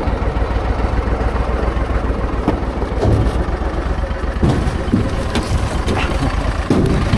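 An engine running steadily with a low rumble, with a few short clicks and knocks over it.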